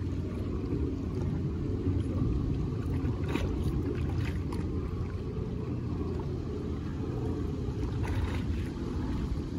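Steady low wind rumble on the microphone, with a few faint clicks a few seconds in and again near the end.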